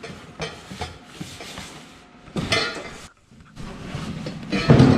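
A cardboard box being opened and its contents handled: a series of irregular knocks and rustling, with the loudest clatter near the end.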